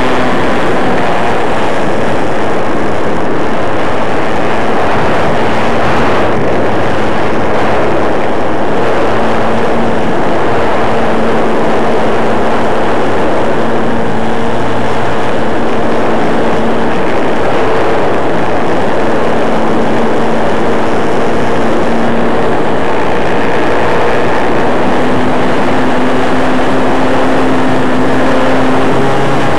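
The OS 40 glow engine of an RC Duraplane running in flight, heard loud and harsh through the onboard mini camera's microphone together with wind rush. Its pitch shifts up and down a few times with the throttle.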